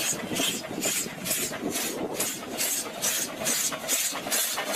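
Steam locomotive working hard, its exhaust chuffing in an even rhythm of about three to four beats a second, with steam hissing.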